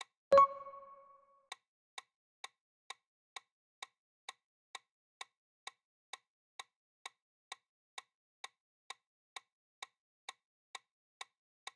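Quiz countdown sound effect: an even clock-like tick a little over twice a second. About half a second in, a single bright chime rings and fades over about a second.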